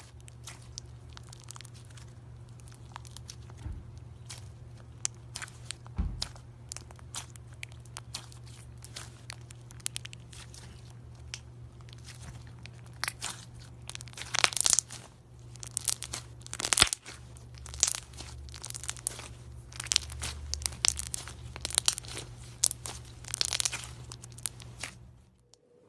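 Hand-played slime crackling and popping in many small sharp clicks over a steady low hum. It grows busier and louder in the second half and cuts off suddenly near the end.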